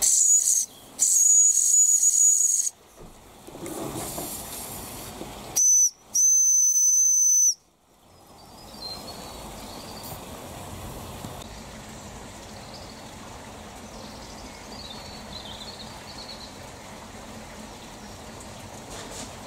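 Miniature steam whistle on an old Mamod toy traction engine, lever-operated, blown in four shrill, steady blasts: two long ones, then a short one and a long one, with steam hissing in between. After the last blast, about seven seconds in, only a steady fainter hiss remains.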